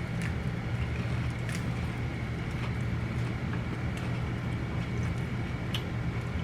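Steady low hum of an idling car engine and its air conditioning, heard inside the cabin, with a few faint crunching clicks of chewing on a corn dog.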